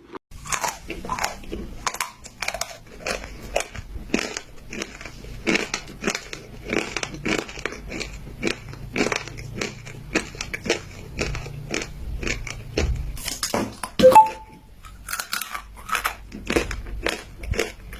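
Chalk being bitten and chewed close to the microphone: a steady run of crisp crunches, about two or three a second. About fourteen seconds in comes one short, louder, pitched sound.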